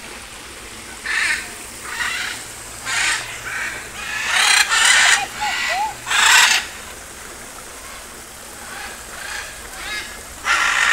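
Macaws squawking: a series of short, harsh, raspy calls, the loudest ones clustered about four to six and a half seconds in, with another loud call near the end.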